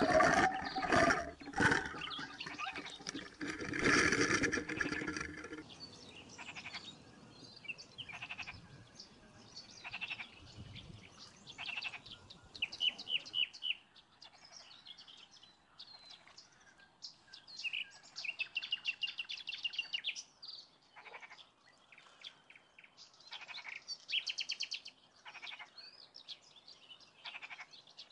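Water churning and bubbling for the first few seconds, then birds and frogs calling: repeated chirps and short, rapid trills every few seconds.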